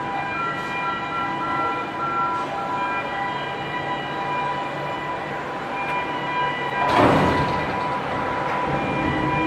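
Heavy machinery running steadily with several whining tones. A repeating beep sounds over the first few seconds, and a loud hiss-like burst comes about seven seconds in.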